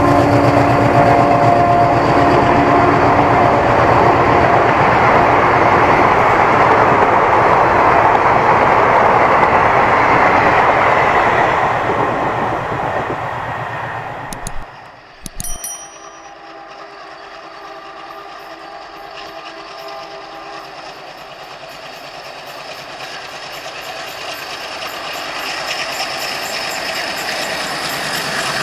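Red ALCo WDM-3D diesel locomotive sounding its horn for the first couple of seconds, then the train passing at high speed: the engine chugging hard at full throttle and the coaches' wheels clattering over the rails, the loud rush fading after about twelve seconds. After a brief break, a quieter train sound with a steady tone slowly grows louder near the end.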